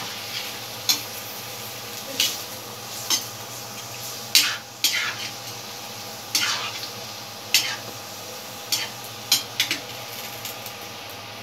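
A spatula scraping and knocking against a pan as chicken pieces are stirred in coconut milk, in about a dozen irregular strokes. The loudest strokes come about halfway through.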